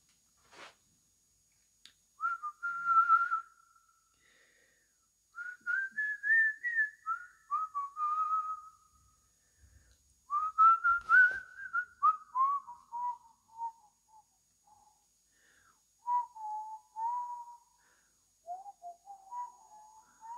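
A person whistling a tune in short phrases of a few notes with pauses between, the melody sinking lower toward the end. A single sharp knock comes about halfway through.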